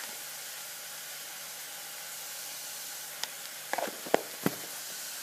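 Chopped onion and green chilli frying gently in oil in a kadai, a steady soft sizzle. Between about three and four and a half seconds in come a few light clicks and knocks as half a teaspoon of turmeric powder is added to the pan.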